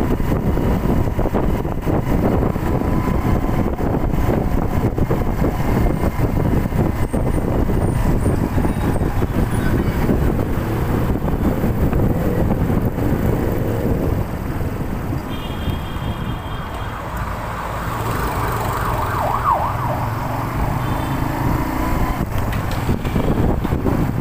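Motorcycle engine running while riding through city streets, with wind rushing over the microphone; it eases off and goes quieter for a few seconds past the middle, then picks up again.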